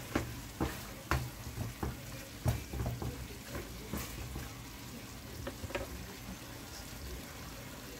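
Spatula stirring chicken pieces in a metal pot, knocking and scraping against the pot over a faint sizzle. The stirring strokes thin out about halfway, leaving mostly the low sizzle.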